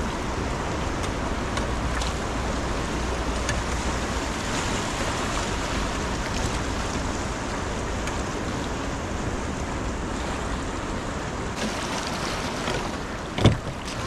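Steady rush of the Beas River's shallow water running over rocks around an inflatable raft. A single sharp knock sounds near the end.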